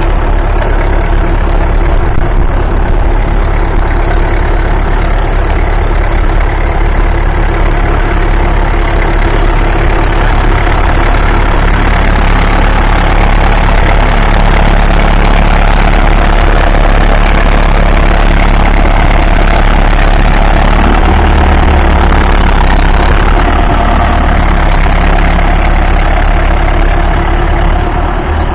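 The 1961 Massey Ferguson 65's 3.3-litre four-cylinder diesel engine runs loud and steady under load, pulling a Ransomes three-furrow reversible plough through the ground.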